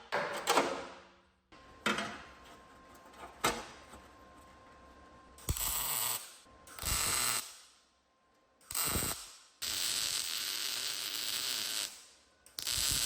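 Workshop tool sounds: a few sharp mechanical clicks, then several short bursts of hissing noise and a steadier hiss lasting about two seconds.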